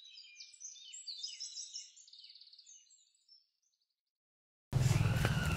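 Small birds chirping and trilling, faint and high-pitched, dying away about three seconds in. Near the end a much louder outdoor sound with a steady low hum cuts in abruptly.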